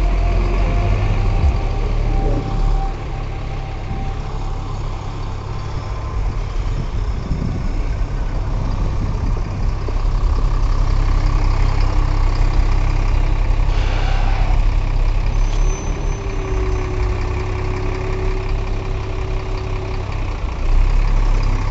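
Road traffic close by: a double-decker bus and cars moving slowly, with a steady low engine rumble.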